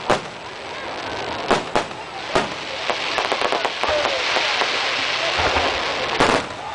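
Fireworks display: several sharp bangs of shells bursting, then a dense crackling from about three seconds in that lasts a few seconds, and one more bang near the end.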